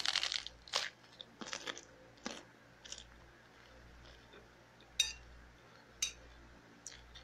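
A crunchy bite into food, then a few seconds of chewing and crunching. Two sharp metallic clicks come about five and six seconds in, from stainless-steel chopsticks.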